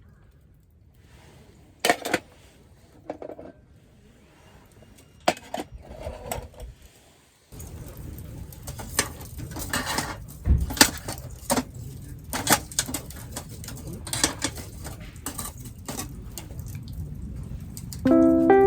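A few sharp metal clinks of cooking gear, then, about halfway through, a steady sizzle with frequent pops and clicks as meat grills over a wood fire.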